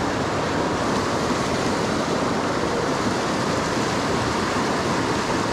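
Fast, tumbling river water rushing steadily in a riffle.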